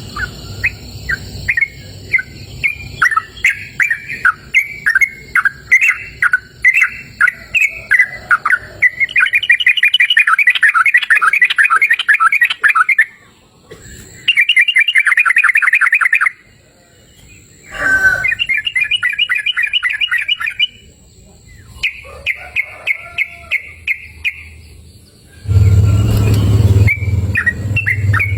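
Sooty-headed bulbul singing: a run of short separate notes, then fast chattering trills in bursts of two to three seconds with short pauses between. Near the end a low hum with a rushing noise comes in under the song.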